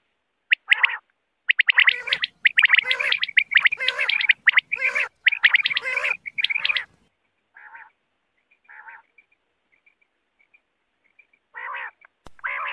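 Common quails calling in a lure-style recording. Many short, sharp notes overlap in a dense run for about seven seconds, then thin out into a few quieter calls and faint high pips, with a louder group of calls near the end.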